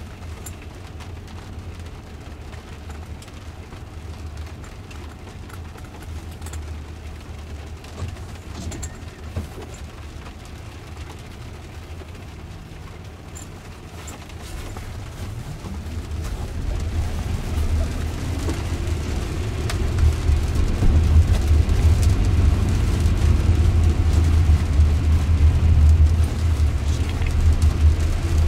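Inside a Jaguar I-Pace electric car in the rain: a steady low hum with faint ticks of rain on the car. About halfway through, the car pulls away, and its electric motor whine rises in pitch while tyre noise on the wet road grows louder.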